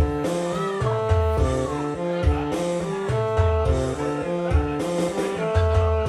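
Casio keyboard music in an instrumental break with no vocals: a stepping melody over a bass line, with regular drum hits.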